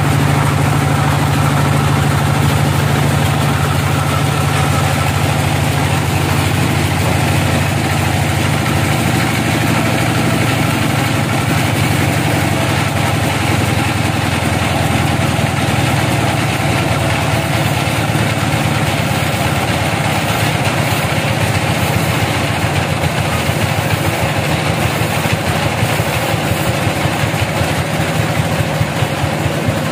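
Engine-driven homemade band-saw sawmill running steadily, a loud low mechanical hum whose note changes about nine seconds in.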